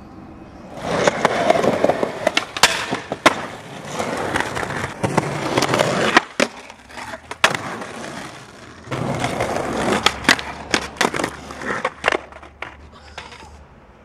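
Skateboard wheels rolling on concrete and asphalt in two long runs, with sharp clacks of the board striking the ground several times.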